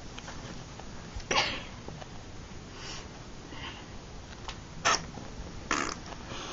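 A few short breathy sounds from a person, such as sniffs or a stifled sneeze: the loudest about a second in, two more near the end.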